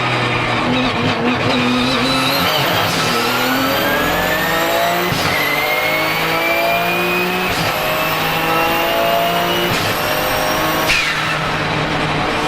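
Twin-turbocharged 3.9-litre flat-six of a Porsche 997 GT2 RSR accelerating hard, its pitch climbing through three quick upshifts of the sequential gearbox, with a high turbo whistle over the engine. Near the end the throttle closes and the engine note and whistle drop away suddenly.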